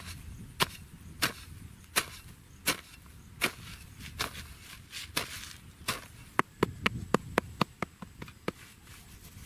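Wood being chopped with a blade, one sharp strike about every 0.7 s, then a quicker run of lighter strikes, about five a second, near the end.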